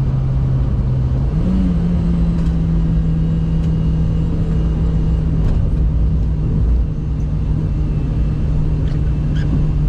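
Volkswagen Saveiro Cross pickup driving, its steady engine drone stepping up in pitch about a second and a half in and then holding, over road noise.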